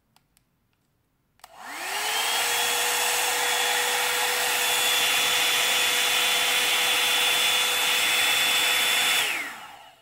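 Revlon One-Step hair dryer and volumizer hot air brush run on its cold setting: the fan motor spins up about a second and a half in with a rising whine, runs steadily with a loud rush of air, and winds down with a falling whine near the end.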